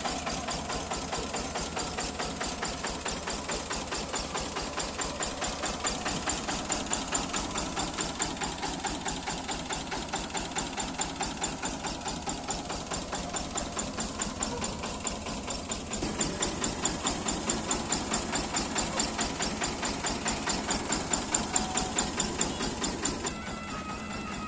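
Single-cylinder diesel engine of a jugaad farm vehicle running with a steady, even beat. About a second before the end the engine sound drops away and music comes in.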